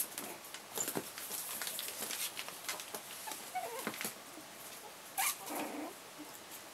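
Young chihuahua-cross puppies playing on a tiled floor: quick clicks and patter of small claws and paws, with a few high little squeaks and whimpers. The loudest is a short squeal a little after five seconds in.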